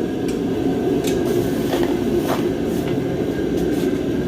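Steady mechanical hum from a running machine, with a few faint clicks or taps over it.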